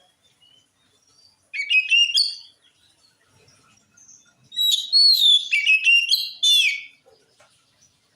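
Oriental magpie-robin (kacer) singing in full song: two phrases of quick whistled notes that slide up and down, a short one, then a longer one of about two and a half seconds.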